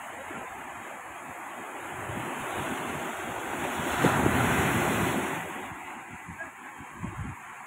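Surf breaking on the shore, swelling to its loudest as a wave crashes close in about halfway through, then easing off. Wind buffets the microphone.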